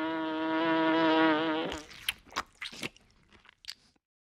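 Cartoon bee buzzing sound effect, a steady pitched drone that cuts off about a second and a half in, followed by about five short crunchy clicks.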